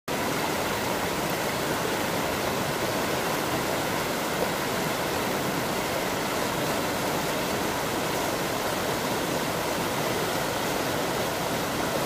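Shallow mountain river rushing over and between boulders in white-water rapids: a steady, full rush of water.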